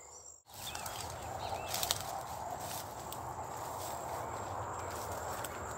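Footsteps and rustling through grass and brush, starting about half a second in, over a steady high insect drone, with a few faint bird chirps.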